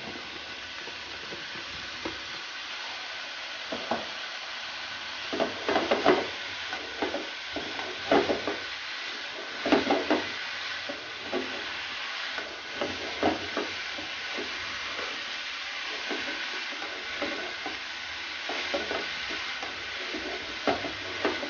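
Shredded vegetables and chicken stir-frying on high heat: a steady sizzle, broken by irregular scraping strokes of a spatula against the pan.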